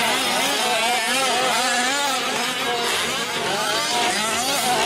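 Small two-stroke gasoline engines of 1/5-scale RC race trucks, more than one at a time, revving up and down without pause as the trucks race.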